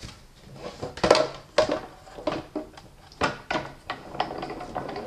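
A run of light clacks and taps as plastic cutting plates and metal dies are handled and set on the platform of a Sizzix Big Shot die-cutting machine.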